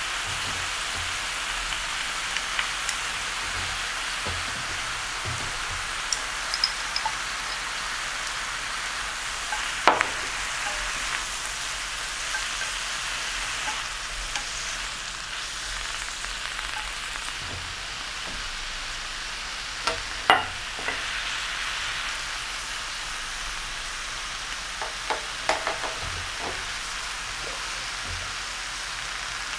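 Spring greens sizzling steadily as they wilt in a hot frying pan, with a few sharp taps as they are stirred with a wooden spatula, the loudest about ten and twenty seconds in.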